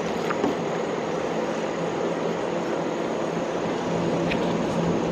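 Steady rushing noise with a faint low hum beneath it.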